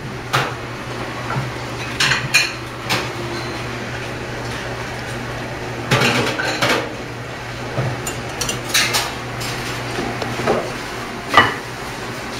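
Plates and cutlery clinking and knocking now and then, about half a dozen separate clinks, over a steady low hum.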